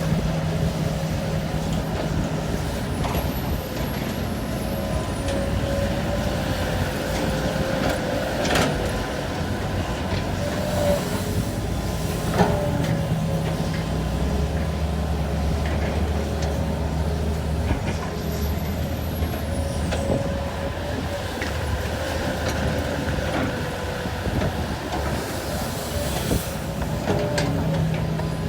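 Heavy hydraulic excavator working while loading soil into a ten-wheel dump truck: a steady diesel engine drone with a wavering hydraulic whine, broken by a few sharp knocks.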